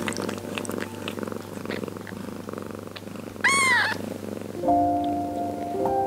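Mother cat purring while licking her newborn kittens, with soft licking clicks. About three and a half seconds in a newborn kitten gives one loud, high mew that rises and falls. Soft sustained background music notes come in near the end.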